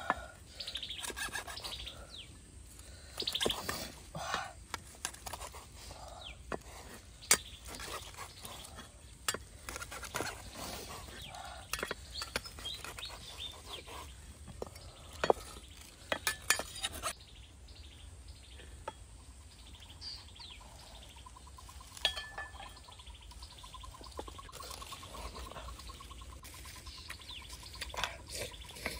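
Steel cleaver chopping grilled cow skin on a thick wooden chopping block: sharp single knocks every second or few seconds, with the blade scraping and tapping on the wood between them. Birds chirp faintly in the background.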